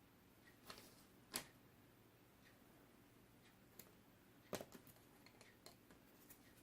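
Near silence, broken by a few light clicks and taps from handling cups and tools at a work table. The sharpest taps come about a second and a half in and again about four and a half seconds in.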